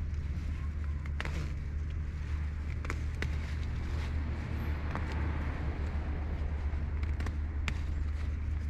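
Steady low rumble, with scattered rustles and snaps of leaves and stems as weeds are pulled up by hand.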